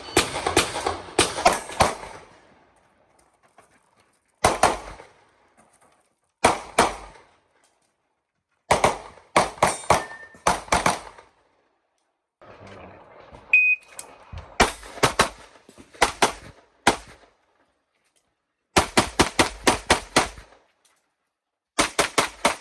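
Pistol-calibre open-class race pistol (a .38 Super) firing in quick strings of shots, several shots each, with pauses of one to two seconds between the groups.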